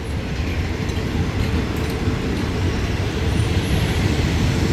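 Passenger coaches of a departing train rolling slowly past, their wheels running on the rails in a steady rumble that grows a little louder.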